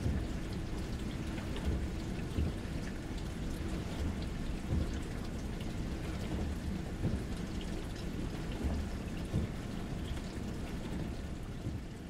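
Dishwasher running: water spraying inside the tub over a low rumble, with a few soft knocks, fading out near the end.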